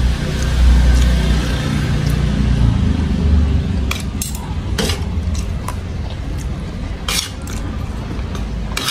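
Metal spoon and fork clinking and scraping on a porcelain plate of rice, with several sharp clinks from about four seconds in. A low rumble fills the first few seconds and is the loudest sound.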